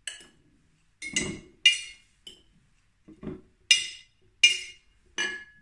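A metal utensil clinking against a glass jar as pieces of preserved lemon are packed into it: about eight separate light taps with a short glassy ring, the last one ringing on briefly.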